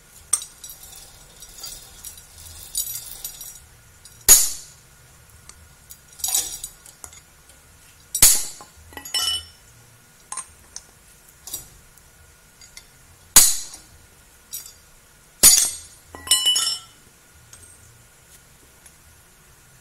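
Metal tools striking and clinking on forklift clutch parts while the worn release bearing is worked off: several sharp metal knocks a few seconds apart, with lighter clinks between them, some leaving a brief ring.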